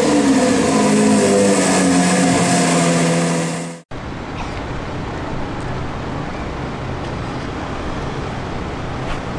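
A high-revving sports-car engine holds a loud, slowly falling note and cuts off abruptly about four seconds in. Steady street traffic noise follows.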